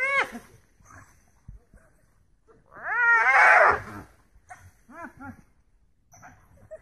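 Yelping, squealing calls from a clash between African wild dogs and spotted hyenas, each call arching up and down in pitch. A short call comes at the start and the loudest, longest one about three seconds in, followed by a few short, fainter calls.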